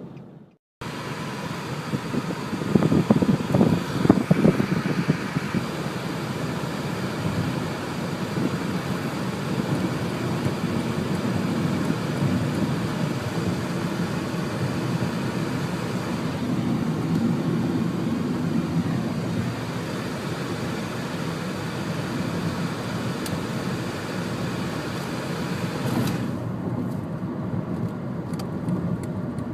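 A vehicle on the move: a steady rumble of engine, tyres and wind, louder for a few seconds shortly after the start.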